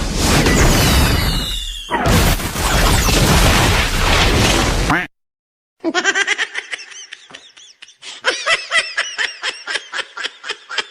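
A loud, noisy blast-like burst with falling whistling sweeps runs for about five seconds, breaking once about two seconds in. After a brief silence comes rapid, high-pitched, bubbling laughter.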